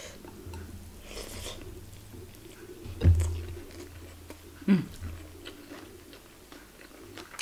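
A person chewing food with close, wet mouth sounds and small clicks, with a couple of louder sudden sounds about three and about four and a half seconds in.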